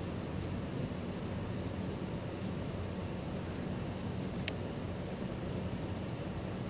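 A cricket chirping steadily in short, high chirps, a little over two a second. One faint click sounds about four and a half seconds in.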